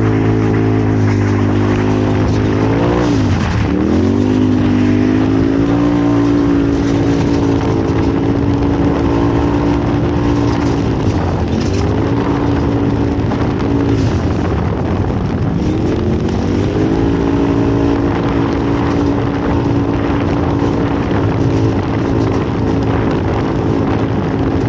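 Off-road race vehicle's engine running hard at speed, its pitch dipping sharply and climbing back three times as the throttle eases and comes back on, over road and wind noise.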